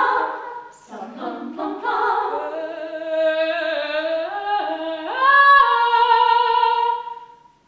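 A cappella group singing unaccompanied in close harmony. The voices step upward through held chords, swell to a long loud chord, and stop together shortly before the end.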